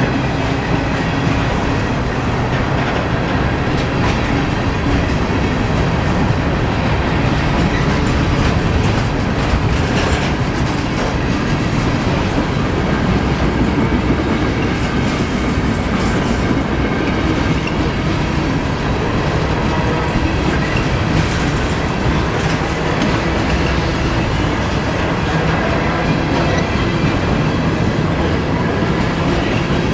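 Freight train of empty grain hopper cars rolling past: a steady, loud rumble with clickety-clack of the wheels over rail joints.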